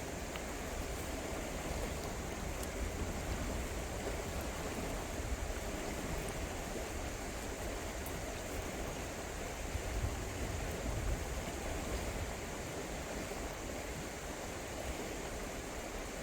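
Shenandoah River flowing, a steady rush of moving water. A low rumble swells briefly about ten to eleven seconds in.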